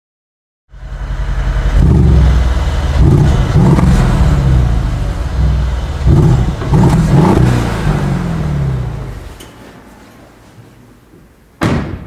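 A car engine revving several times, its pitch rising and falling, then fading out after about nine seconds; a short, sharp, loud burst follows just before the end.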